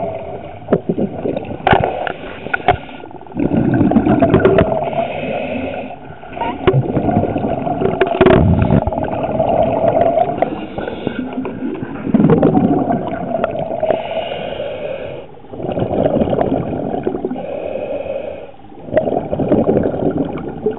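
Scuba diver's regulator breathing heard underwater: a surge of exhaled bubbles about every three to four seconds, with quieter gaps between breaths. A few sharp clicks come in the first few seconds.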